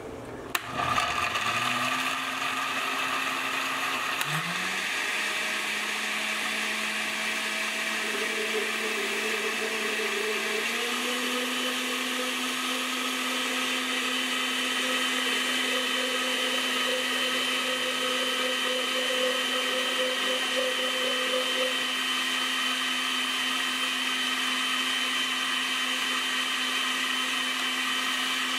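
Oster countertop blender running, puréeing chunks of tomato, onion and garlic in water into a smooth liquid. The motor starts about a second in, its pitch climbs near four seconds and steps up again near eleven seconds, then holds steady.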